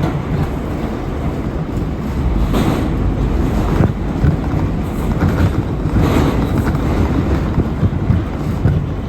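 R179 subway train heard from inside the car, running at speed: a loud, steady rumble of wheels on rail with motor noise, swelling briefly louder twice.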